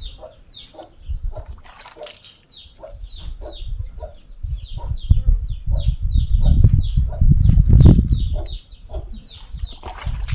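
Chickens calling nearby: a steady run of short, falling high peeps, about three a second. Under them is a low rumbling noise that grows loud from about halfway through.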